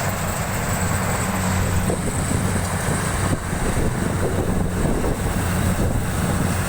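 Rice combine harvester running steadily, its diesel engine humming under a dense, even clatter of machinery.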